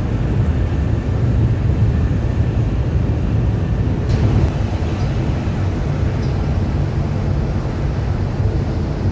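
Steady low rumble of the Whoosh high-speed train running, heard from inside the passenger carriage, with a brief click about four seconds in.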